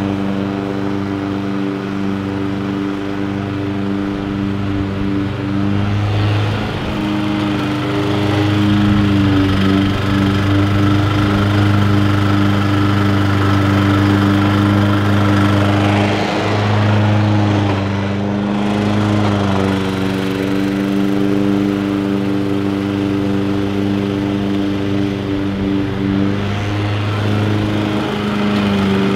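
Engine of a Bob-Cat commercial 21-inch walk-behind lawn mower running steadily while it cuts grass, its pitch shifting slightly now and then.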